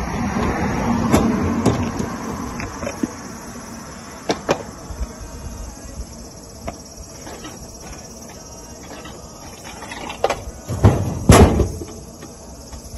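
Insects trilling steadily in the background, with scattered clicks and clatter; the loudest sounds are a few sharp knocks close together about ten to eleven seconds in.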